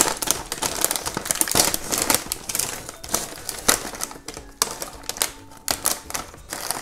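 A metallized plastic snack bag of corn sticks ripped open, loudest at the very start, then irregular crinkling and rustling of the bag as hands dig through the corn sticks inside.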